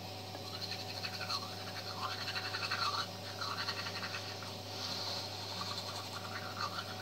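Manual toothbrush scrubbing teeth in quick back-and-forth bouts, starting about half a second in. Under it runs the steady hum of an overhead bathroom fan.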